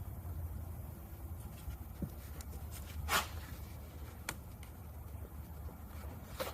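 A few light clicks and knocks, the loudest about three seconds in, over a low steady hum.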